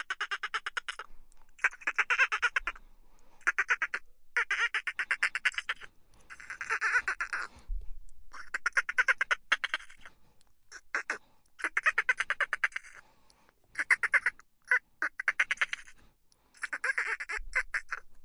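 Dolphin burst-pulse chatter: rapid trains of clicks fused into buzzy, quacking squawks, coming in bouts of about a second with short gaps between them.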